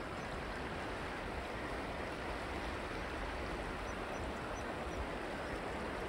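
Shallow mountain river running over a bed of rounded stones: a steady rush of water.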